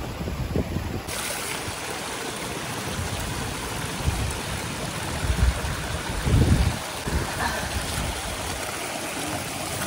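Running water of a mountain stream making a steady rush, with a few low thumps near the middle.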